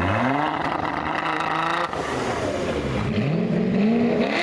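A high-performance car engine accelerating hard, its revs climbing steeply. The pitch breaks off about two seconds in, then climbs again twice.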